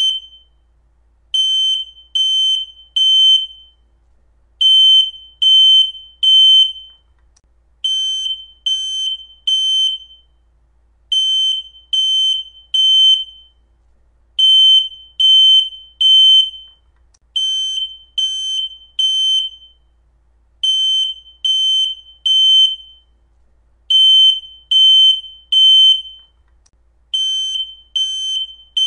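Smoke alarm going off: loud, high-pitched beeps in groups of three, each group followed by a short pause, repeating steadily. This is the temporal-three pattern of a detector in full alarm, not a low-battery chirp.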